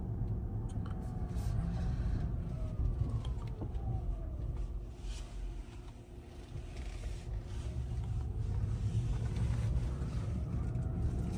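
Cabin sound of a Rivian R1T electric pickup driving: a steady low road and tyre rumble with a faint electric-motor whine. The whine falls in pitch as the truck slows, the sound is quietest about six seconds in, and the whine rises again as the truck pulls away.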